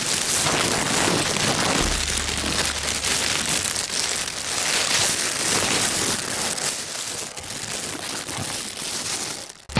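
Foil emergency survival blanket crinkling and rustling right against the microphone, a steady dense crackle as it is shifted around. A brief low hum sits underneath about two seconds in.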